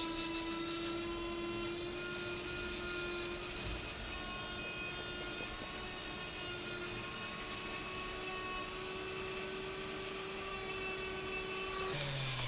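Dremel rotary tool running at high speed, grinding down a freshly cast silver ring: a steady high whine over a grinding hiss that stops abruptly near the end.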